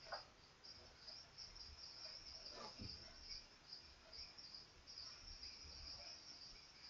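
Near silence, with faint crickets chirring in a high, pulsing band in the background.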